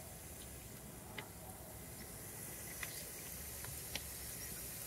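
Parboiled potatoes shallow-frying in oil in a cast iron skillet: a steady high sizzle, with a few sharp pops and crackles about a second, three and four seconds in.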